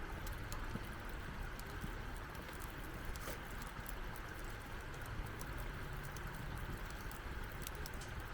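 Wood campfire crackling, with frequent small sharp pops over a steady low rush of wind.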